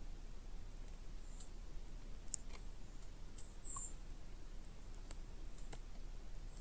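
Quiet summer woodland ambience heard from inside a tent: a faint steady hiss with scattered small clicks and ticks, and a brief high chirp a little over halfway through.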